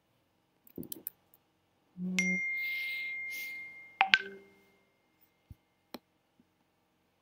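WhatsApp desktop message-notification chime, a short bright ding about four seconds in. Before it come a few faint knocks and a steady hiss with a thin high tone lasting about two seconds.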